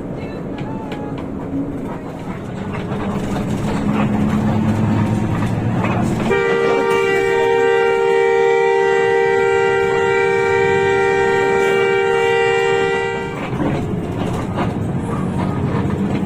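A loud horn with several steady notes blows continuously for about seven seconds, starting about six seconds in. It sounds over the running noise of the bus.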